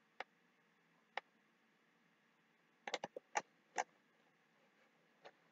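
Faint computer mouse clicks: single clicks about a second apart, then a quick run of several about three seconds in, and one more near the end.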